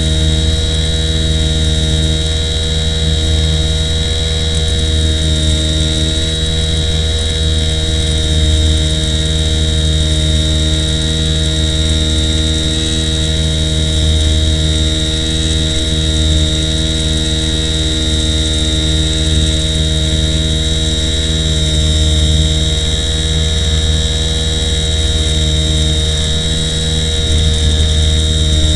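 Steady electrical hum and buzz with a constant high whine over it, unchanging throughout.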